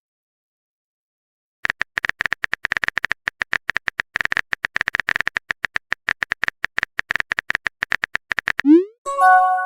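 Rapid on-screen phone keyboard typing clicks, many a second, for about seven seconds, then a short rising swoop and a brief chime as a chat message is sent.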